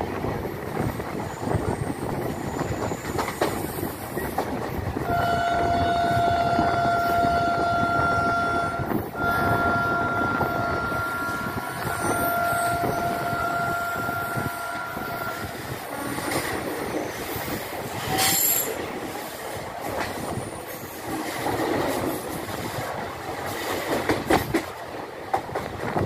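Passenger train running, heard from an open coach window: steady rumble and rattle of the coaches on the track. From about five to fifteen seconds in, a long steady tone, briefly broken a few times, sounds over the running noise.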